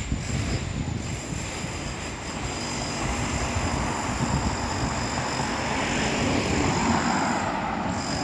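Vehicle traffic noise: a vehicle passing, swelling slowly to its loudest about two-thirds of the way through and then easing off, over a steady rumble.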